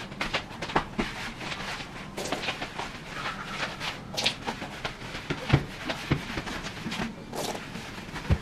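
Mop scrubbing over a kitchen floor: irregular swishing and scuffing with scattered knocks from the mop head and handle.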